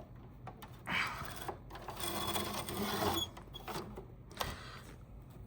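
Plastic air filter of a window air conditioner being slid into its slot in the front grille. The plastic scrapes and rattles for about two seconds, with small clicks and knocks around it.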